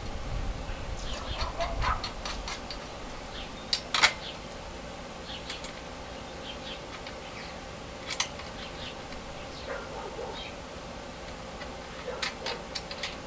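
Scattered clicks and knocks of metal parts being handled as bolts are fitted to a coal forge's blower fitting, with a sharp knock about four seconds in.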